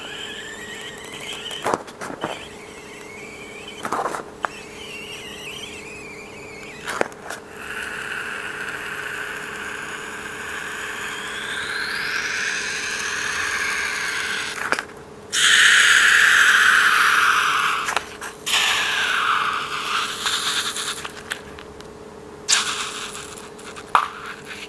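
Rubber balloon squealing as air is let out through its stretched neck: a long sliding high squeal that rises in pitch partway through, then a louder, harsher squeal, with a few sharp clicks and knocks in between.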